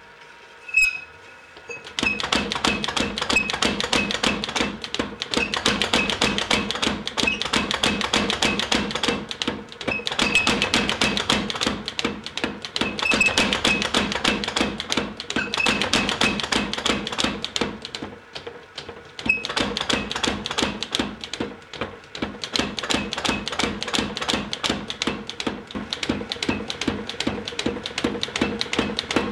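Power hammer rapidly striking a red-hot steel bar between its dies as a lathe handle is forged. A single blow about a second in, then a fast, steady run of metallic blows from about two seconds in, broken by a few short pauses.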